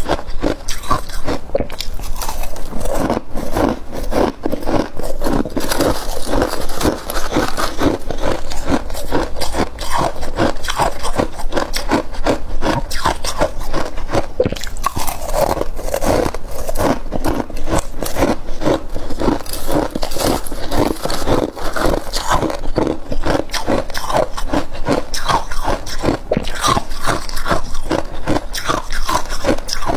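Freezer frost being bitten and chewed close to the microphone: a continuous run of crisp crunches.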